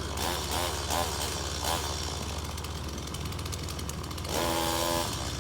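RC rock crawler's electric motor and geartrain whining, rising and falling in pitch in short throttle changes, then holding a steadier whine for just under a second about four seconds in, over a constant low hum.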